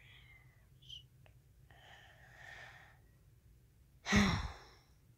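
A girl breathes in softly and then lets out a short, audible sigh about four seconds in, with a couple of faint clicks from the phone being handled early on.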